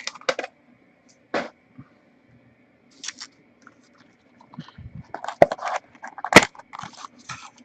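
Trading card packs and cards being handled: foil wrapper crinkling, scraping and sharp clicks, sparse at first and busier from about five seconds in.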